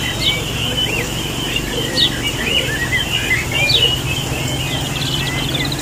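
A caged flock of laying Coturnix quail chirping and calling: many short, quick chirps that slide up and down in pitch, with a fast trill about five seconds in, over a steady low hum.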